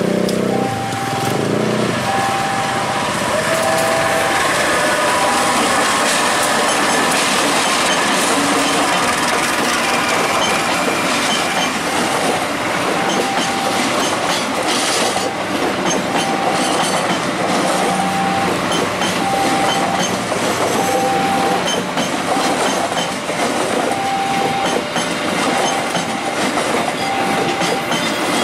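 Diesel-hauled passenger train passing close by, the coaches' wheels clattering over the rail joints in a steady loud rumble. The level-crossing warning signal sounds through it as a short repeated tone about once a second, and a low horn-like tone sounds in the first two seconds.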